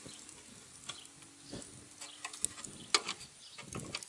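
Steel shashlik skewers clicking and clinking against each other and the metal grill as they are handled and shifted over a charcoal mangal, a handful of light, sharp clicks spread out over a few seconds.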